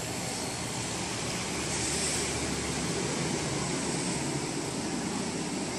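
Air conditioner fan motor and blower wheel running steadily, an even whir with a low hum.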